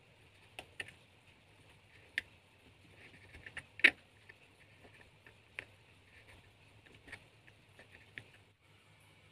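Hobby knife blade cutting and scraping the edge of a small PVC plastic part: scattered sharp clicks and ticks, the loudest just under four seconds in.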